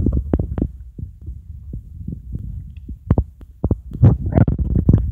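Low rumbling and thumping of air buffeting the phone's microphone, with short sharp knocks scattered throughout.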